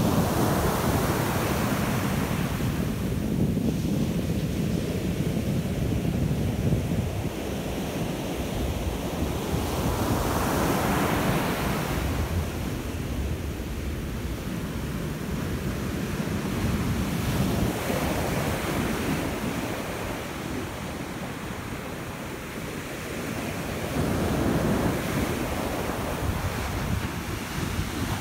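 Ocean surf breaking and washing up the beach, the hiss of foam swelling and fading with each wave every several seconds, under a steady low rumble of wind buffeting the microphone.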